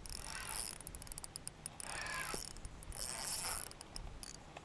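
Spinning reel being wound in, its gears and handle whirring and ticking in several short spurts with pauses between, as a hooked fish is reeled in.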